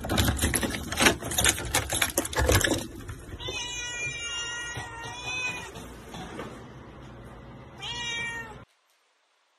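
Keys jangling on a ring and a key rattling in a door lock for the first three seconds. Then a black domestic cat meows in several long, drawn-out calls, with a shorter meow near the end.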